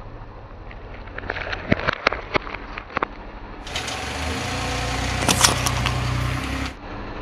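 Car rolling slowly on stone paving with its engine running, with scattered sharp clicks and cracks in the first few seconds. From about four seconds in, a steady engine hum with more hiss sets in, then cuts off abruptly near the end.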